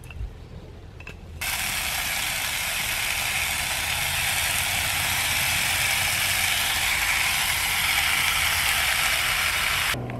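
Sliced corned beef sizzling in a hot frying pan over a small wood fire: a steady, dense sizzle that starts suddenly about a second and a half in and cuts off abruptly near the end.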